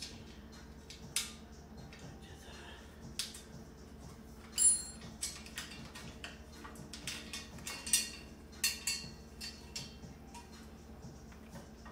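Metal frame parts of a flat-pack kitchen storage cart being handled and fitted together by hand: scattered clicks and clinks of metal on metal, with one louder ringing clink a little under five seconds in.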